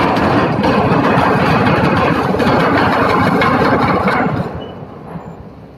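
Container ship's steel bow grinding into a concrete quay wall: a loud, rough, continuous grinding that dies away about four seconds in.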